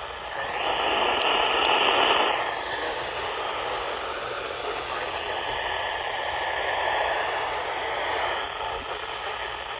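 Static hiss from a weather radio receiver's speaker, the noise of a weak or unreceived broadcast signal. It swells louder about half a second in and drops back after about two seconds, then stays steady.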